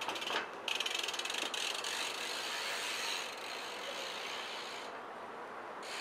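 BMX bike's rear hub ratcheting as the bike coasts: a fast run of fine clicks that fades after about three seconds.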